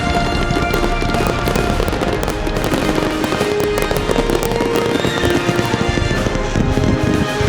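Fireworks bursting and crackling in a dense, rapid series over background music.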